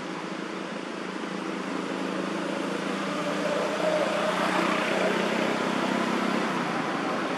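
A motor vehicle's steady engine hum in the background, swelling louder about halfway through as if passing closer.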